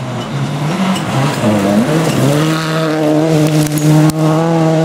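Škoda Octavia rally car sliding through a gravel corner, its engine note jumping and dipping in the first two seconds, then holding a steady strong note as it accelerates away flat out. Tyres scrabble on loose gravel, with a few sharp ticks of stones.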